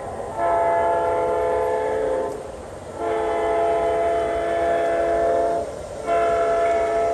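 Sound-equipped model diesel locomotive blowing its chord horn through its onboard speaker: two long blasts and a short one, the long-long-short opening of a grade-crossing signal.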